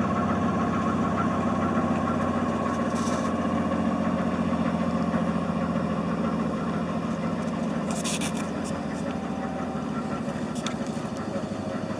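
An engine idling steadily, easing off a little in loudness in the second half, with a few brief high clicks.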